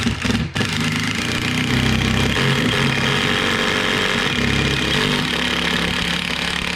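Power drill running under load, driving a 3-inch decking screw at an angle through the subfloor into the wood beneath; a steady motor drone whose pitch shifts a little as the screw goes in.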